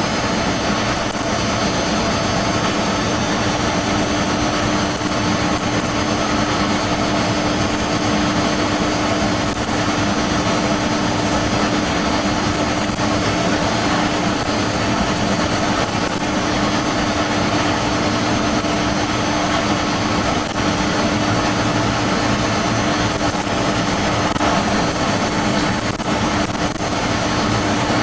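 Steady running noise of a train travelling at speed, heard from inside at the front, with a constant hum under a wide rushing noise.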